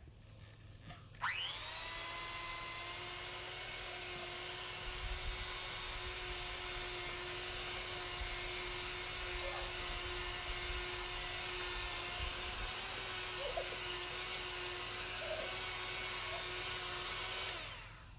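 Electric hand mixer with a wire whisk switching on about a second in, its motor whine rising quickly to a steady pitch as it beats a thick cream mixture in a glass bowl. It winds down and stops near the end.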